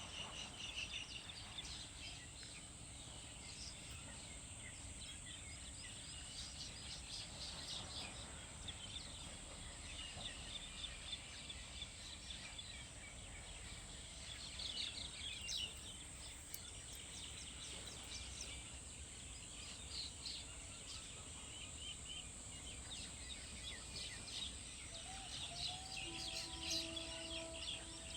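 Many birds chirping and twittering in quick, overlapping calls, over a steady high hiss. Near the end a few brief, steady lower tones sound.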